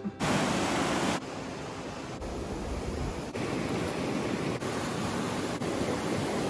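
A fast river rushing through whitewater: a steady, even rush of water, its level shifting slightly every second or so.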